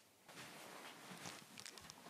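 Near silence: faint room tone with soft rustling and a few light ticks, after a brief click at the very start.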